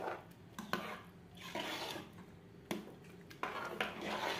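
A metal spoon stirring thick vermicelli milk payasam in a metal pot: several wet, scraping stir strokes, with sharp clicks where the spoon knocks the pot.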